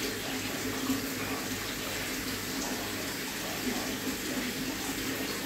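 Aquarium water circulation running steadily: a constant rush of water from the tank's single working circulation pump, with a faint low hum underneath.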